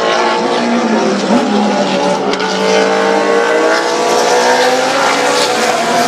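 Several race car engines running together at speed, their overlapping pitches shifting as cars pass, with one engine's pitch rising steadily near the end.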